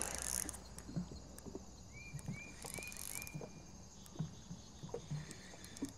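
Faint scattered knocks and ticks of water lapping around a small boat's hull, with a bird calling four short, identical chirps about two seconds in.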